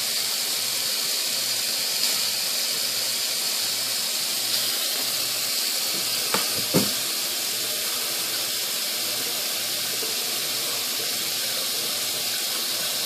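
A steady hiss, with a few faint clicks about two, four and six seconds in.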